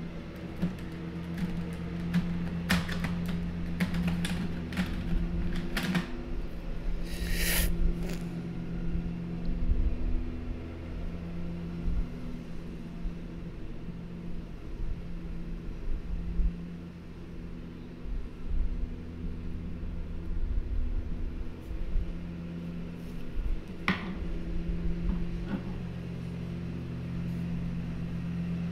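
A steady low machine hum, like a fan or appliance running, with a few soft clicks in the first eight seconds, a brief swish about seven seconds in and a single tick near the end.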